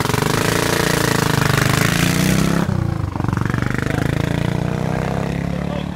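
Classic motorcycle engine accelerating hard away from a hill-climb start line, the pitch climbing steadily, dropping suddenly about three seconds in at a gear change, then climbing again.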